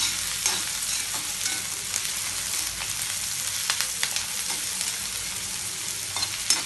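Chopped onions sizzling in oil in an iron kadai, stirred with a metal slotted spoon that scrapes and clicks against the pan every second or so.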